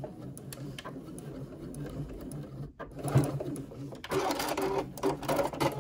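Electric sewing machine stitching slowly to the end of a seam through fabric, zipper tape and fleece, a steady low motor hum, with a few clicks near the end as the machine stops and the work is handled.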